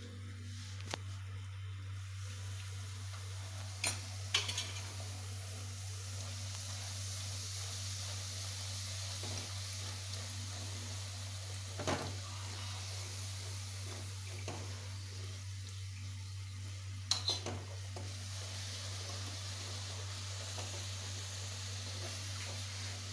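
Food frying in a pan on a gas stove: a steady sizzling hiss that strengthens about two seconds in, under a constant low hum. A utensil clicks against the pan a handful of times, twice near 4 s, once around 12 s and twice around 17 s.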